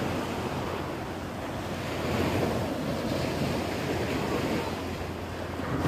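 Small waves breaking and washing up on a sandy shore, with wind rumbling on the microphone. The surf swells about two seconds in.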